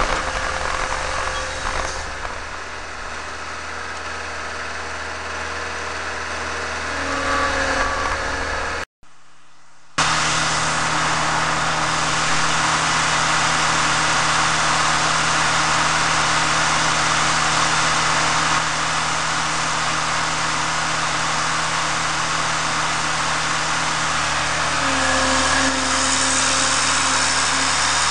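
Tractor engine running steadily, with a short drop-out about nine seconds in, after which it runs louder and steady.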